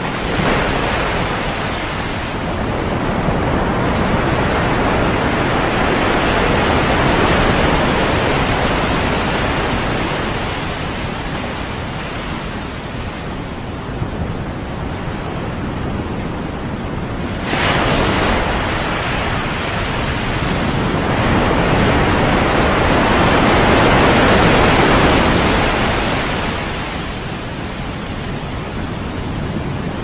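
Sea waves breaking and washing in, rising and falling in slow swells every several seconds, with a sudden sharper break a little past halfway.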